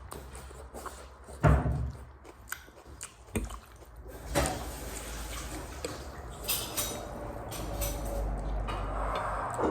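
Eating a bowl of thukpa noodle soup: a few knocks of a utensil against the bowl, the loudest about a second and a half in, with soft eating sounds between.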